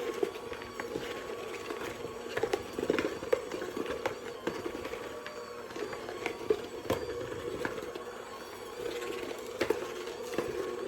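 Bread dough being mixed in a bowl: irregular clicks and knocks of the mixing over a steady low hum.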